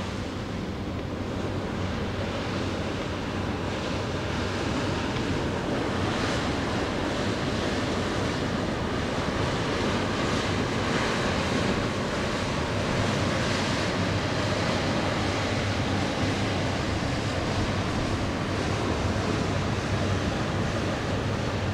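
Wind rushing on the microphone over a faint steady low hum from a passing cruise ship's machinery, the sound growing a little louder over the first few seconds and then holding steady.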